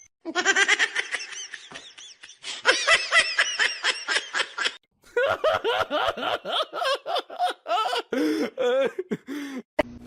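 Laughter in quick, high-pitched repeated bursts, pausing briefly about halfway through and breaking into shorter bursts near the end.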